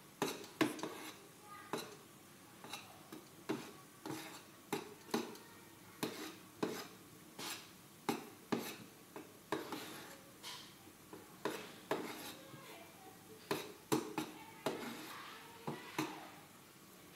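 Metal spoon stirring thick cake batter in a small bowl, knocking and scraping against the bowl's side at an uneven pace of about one or two clinks a second, as brown colouring is mixed into the batter.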